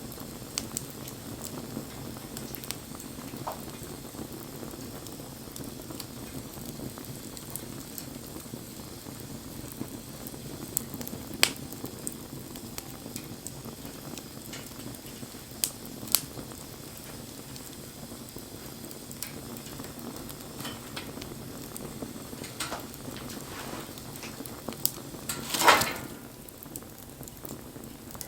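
Wood bonfire burning with a steady low hiss and scattered sharp crackles and pops; one louder, longer crackling burst comes near the end.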